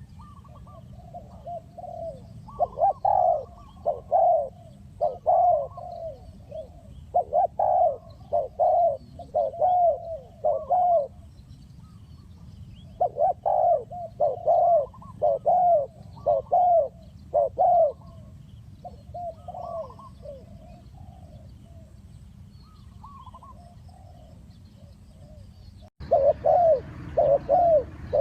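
Spotted dove cooing: phrases of repeated low coos separated by pauses of a second or two, over a steady low hum. Near the end the sound cuts abruptly, and the cooing resumes louder with more hiss behind it.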